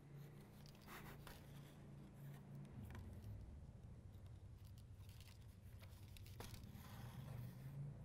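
Faint rasping of thread drawn through the stitching holes in vegetable-tanned leather during hand saddle stitching: several short pulls over a low steady hum.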